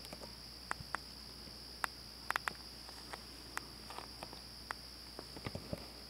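Steady high-pitched chorus of night insects, with about fifteen sharp clicks and taps at irregular intervals.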